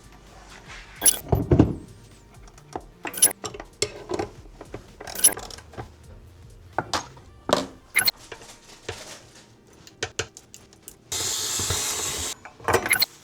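Metal tools and bicycle parts clinking and knocking during hands-on repair work, with a steady hiss lasting just over a second near the end.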